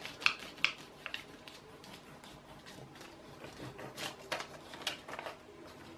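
Faint, scattered rustles and light clicks of hands at a 3D printer bed: a sheet of paper dragged under the nozzle while the bed levelling knob is turned, to set the nozzle-to-bed gap.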